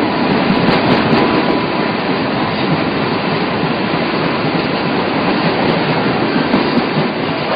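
Freight train running, heard from the roof of a boxcar: a steady noisy rush of the wagons rolling on the rails.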